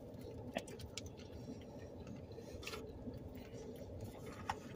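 Faint, scattered clicks and smacks of people eating burritos: chewing and handling the foil wrappers, over a low steady hum.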